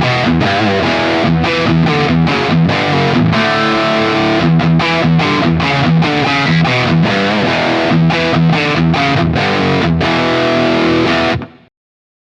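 Distorted electric guitar played through a Peavey 6505 1992 Original valve amp: a high-gain riff of short, choppy chugs and held chords. It stops abruptly near the end.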